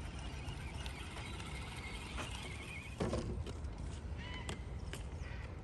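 Outdoor ambience with a steady low rumble and faint high chirps, then, about halfway through, hands rustling and scooping through damp groundbait in a plastic bait bucket, with a few clicks.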